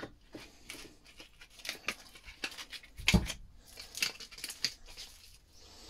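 Irregular clicks, scrapes and knocks of small metal parts being handled and pulled apart while a solenoid is dismantled by hand, with one heavier knock about three seconds in.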